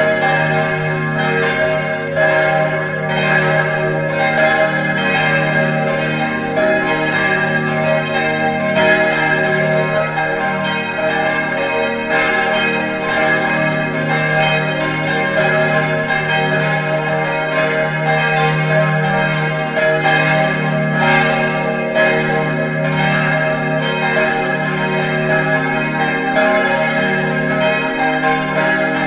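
Full peal of four church bells ringing together, their strike tones E-flat, G, B-flat and C (es¹, g¹, b¹, c²): a dense, unbroken tumble of overlapping strokes over a sustained hum. The bells sound modern, most likely cast by Kurtz of Stuttgart.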